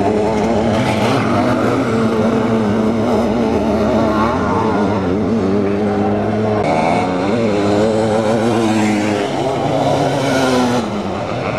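Sidecar motocross outfits racing on a dirt track, their engines revving up and down as they accelerate and back off, with several engines overlapping.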